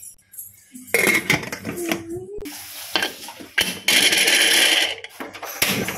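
Metal pots and utensils clanking, clinking and scraping in a series of knocks that start about a second in.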